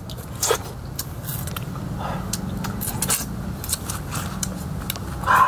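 Raw honeycomb being eaten: scattered sticky clicks and smacks of chewing, over a steady low hum, with a brief louder sound near the end.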